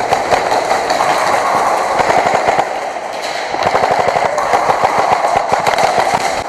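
Airsoft gun firing on full auto in long rapid strings, with a brief let-up about three seconds in.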